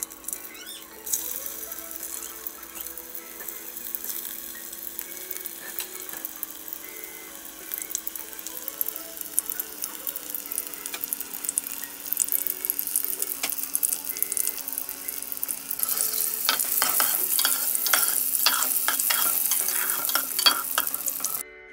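Stuffed bitter gourds shallow-frying in hot oil in a steel pan: a steady sizzle with many sharp crackles and pops. It grows clearly louder and busier about three-quarters of the way through.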